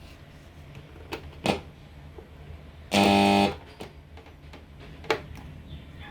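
A short, loud synthesizer note from the Korg M50 keyboard, starting sharply about halfway through and cut off after about half a second, with a few short clicks before and after it.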